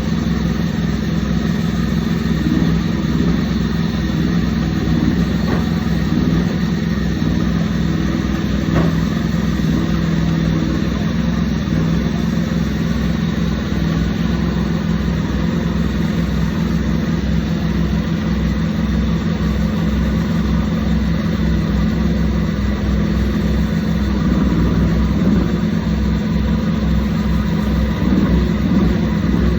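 Engine of a portable woodland band sawmill running steadily at constant speed.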